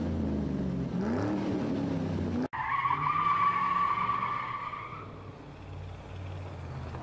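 Car engine revving in two rising sweeps, then a sudden cut into a long tyre screech that fades out over a low rumble.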